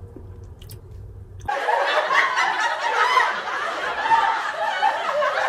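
Laughter, dense and continuous, starting suddenly about a second and a half in after a faint low hum.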